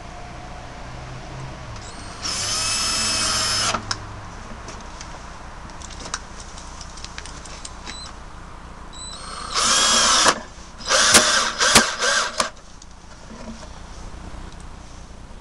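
Cordless drill driving drywall screws into a wooden stand. It runs once for about a second and a half, then after a few light clicks gives four short bursts in quick succession, each whine ramping up as it starts.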